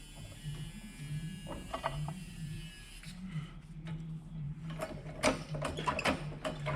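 Socket ratchet clicking as a bolt is turned: a few clicks about a second and a half in, then a run of quick clicks near the end, over a steady low hum.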